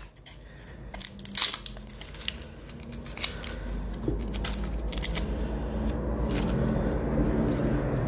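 Dry onion skin crackling and tearing as it is peeled off with a small paring knife, with a few sharp crackles in the first couple of seconds. A steady low rumble builds from about four seconds in.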